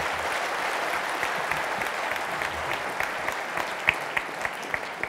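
A large seated audience applauding, a dense patter of clapping that thins out into scattered separate claps over the last couple of seconds.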